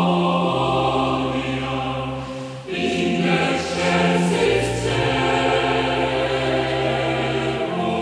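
Background music: a Christmas hymn sung by a choir in slow, long-held chords that change every two or three seconds.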